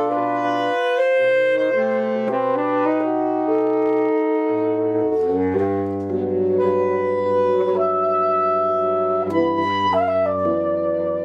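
Saxophone quartet playing slow, held chords that change every second or so over a low bass part.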